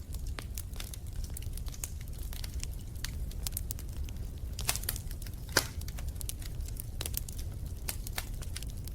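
Fire in a fireplace crackling, with irregular sharp pops over a low steady rumble and one louder pop a little past halfway.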